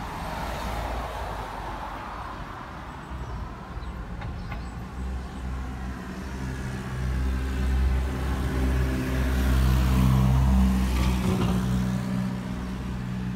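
Street traffic noise, with a motor vehicle's engine drone building up from about five seconds in, loudest around ten seconds, then easing off.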